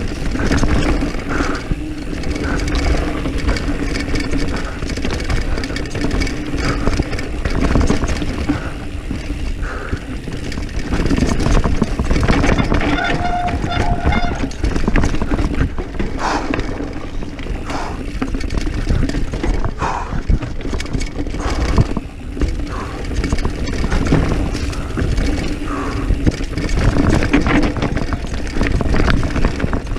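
Diamondback Mission 1 mountain bike riding fast down a rough dirt trail: tyres on dirt and stones, with the bike rattling and clattering over the bumps in a steady, loud rumbling noise.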